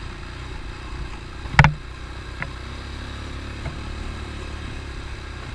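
ATV engine running steadily with a low rumble, with one sharp knock about a second and a half in.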